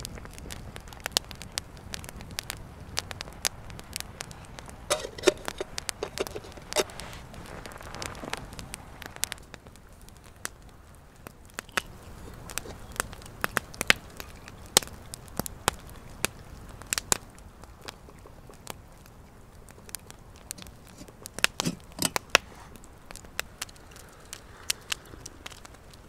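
Wood campfire crackling, with sharp pops at irregular intervals.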